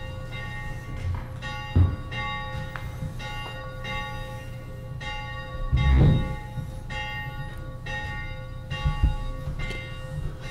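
Church bells ringing, a string of strikes at about one and a half a second, each ringing on as the next one sounds. Three deep thumps come through louder, about two, six and nine seconds in.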